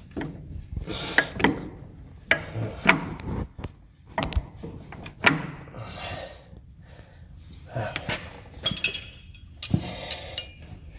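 Irregular metal knocks, clanks and scrapes of hand tools, a pry bar among them, working against the backhoe's hydraulic pump and drive parts to lever them back. A ringing metal clatter comes about nine seconds in.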